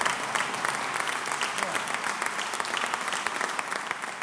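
An audience of many people applauding together, a steady dense clapping that eases off slightly near the end.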